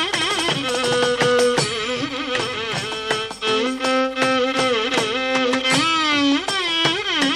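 Carnatic classical music, the pallavi of a Ragam-Tanam-Pallavi in Raga Gamanasrama: a held, ornamented melody with sliding gamakas over regular mridangam strokes.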